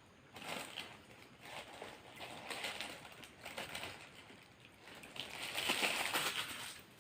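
Paper burger wrapper being handled and crinkled, in several crackly bursts, the loudest near the end.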